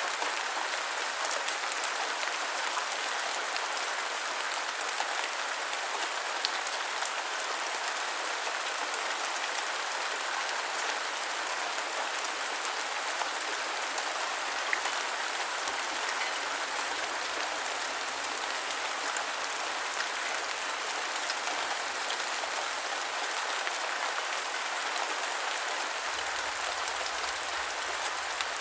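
Steady rainfall: an even hiss with many small drop ticks.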